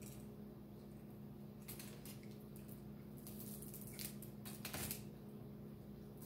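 Soft, scattered crackles and clicks of fingers pulling apart a cooked fish on a foil-lined tray, a few short strokes with the loudest near the middle, over a faint steady hum.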